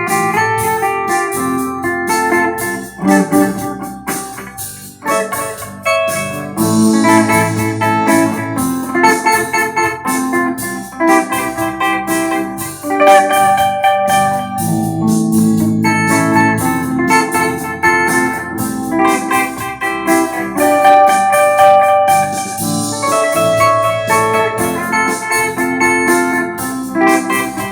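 Instrumental music with a steady beat: an electric guitar played on a clean, undistorted tone, sounding chords and melody notes over keyboard-like accompaniment.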